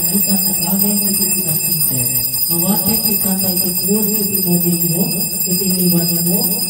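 A man's voice amplified through a microphone and loudspeaker, speaking or chanting in long, wavering phrases, over several faint steady high-pitched electronic tones.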